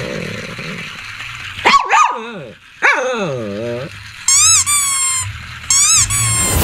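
Shih Tzu howling and whining: two drawn-out, wavering cries in the middle, then quick runs of high-pitched squealing yelps near the end.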